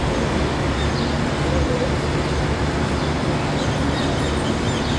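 Steady outdoor background noise: a low rumble with an even hiss and no clear single event.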